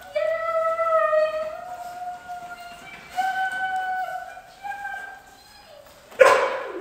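Dog whining in long, drawn-out high tones that step slightly up and down in pitch, followed by a single sharp bark about six seconds in.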